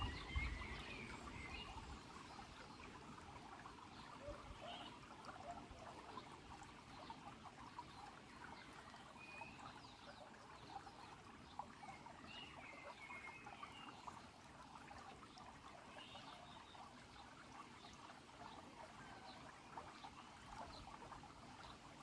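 Shallow stream trickling faintly over pebbles and stones, a steady soft hiss of flowing water, with a few short high chirps now and then.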